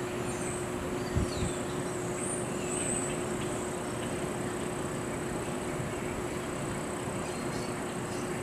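Outdoor ambience: a steady background hiss with a constant low hum and a thin, constant high whine. A few short high chirps come in the first few seconds, and there is one low thump about a second in.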